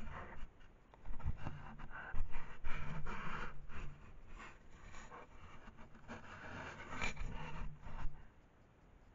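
An animal pressed up against a trail camera, its fur and nose rubbing and bumping the camera housing in irregular scratchy scrapes and knocks. The rubbing stops suddenly about a second before the end.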